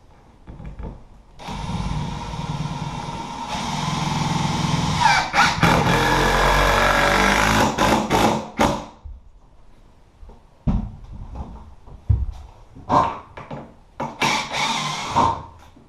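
A power tool's motor runs for about seven seconds, its pitch dropping partway through as if under load, then comes several short bursts.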